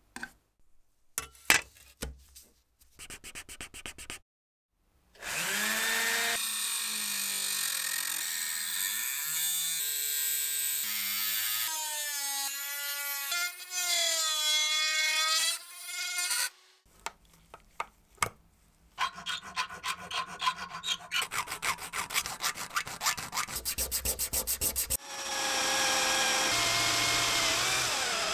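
A few small clicks and taps, then a rotary tool with a cutoff disc cutting sheet metal, its whine dipping and rising with the load for about ten seconds. Then a run of rapid scraping strokes, and near the end a drill with a countersink bit boring into a steel bar.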